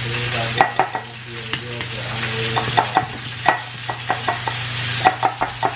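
A plastic measuring spoon stirring and knocking against a glass mixing bowl, giving a run of irregular sharp clicks as honey is mixed into a mustard and butter dressing. A steady sizzling hiss runs underneath.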